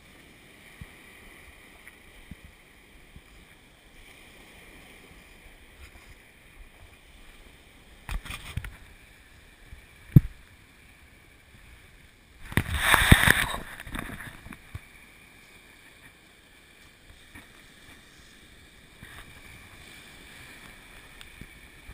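Small waves washing onto a shingle beach, a faint steady rush. Partway through come a few knocks, then a single sharp knock, and soon after a louder rustling burst lasting about a second and a half.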